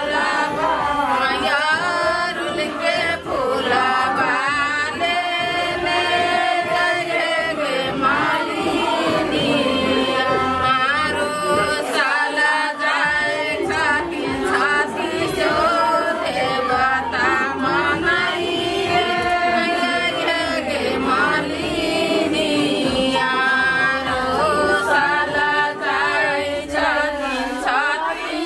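A group of women singing a folk song together without instruments, their voices carrying one wavering melody line.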